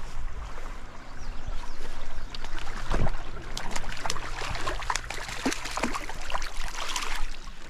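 A hooked trout splashing again and again at the surface of a shallow creek as it is played in toward the bank. The splashes come in a quick, irregular run from about two seconds in until near the end, over the steady trickle of the stream.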